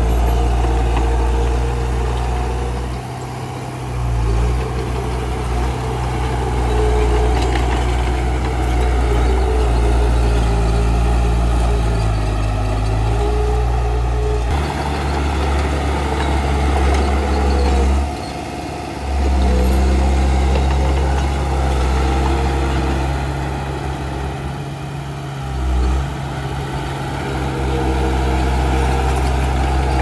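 Heavy diesel engine of an earthmoving machine running loud and steady, easing off briefly a few times as the load changes. About halfway through, the engine sound changes abruptly.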